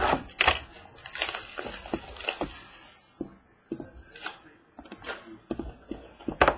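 Shrink wrap being torn off a trading-card box and crumpled by hand: irregular plastic crinkling with short taps of the box on the table.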